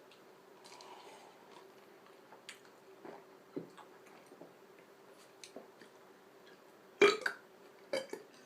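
A person burping after drinking cola: two short, loud burps, about seven and eight seconds in. Before them there is only a faint steady hum and a few small clicks.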